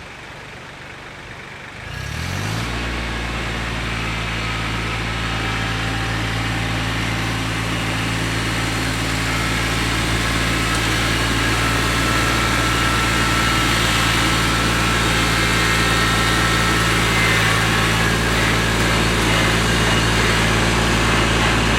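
Mahindra Max 24 tractor's diesel engine speeding up about two seconds in and then running steadily at a constant speed.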